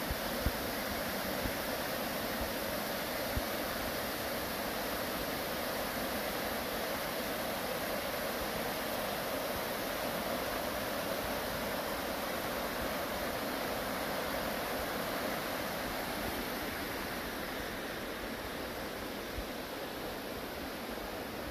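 A fast river in spate, swollen by heavy rain, rushing steadily, a little quieter near the end.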